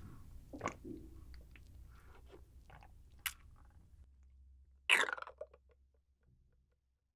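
Close-miked mouth sounds of someone sipping chocolate milk through a plastic straw from a small carton: scattered small wet clicks and swallows, then one louder slurp about five seconds in, followed by a few faint clicks.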